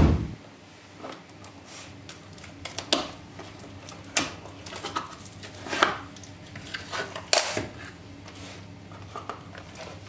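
A cardboard box and its packaging being opened by hand: flaps lifted and torn open, paper and plastic rustling, with scattered crinkles and taps that grow quieter over the last couple of seconds.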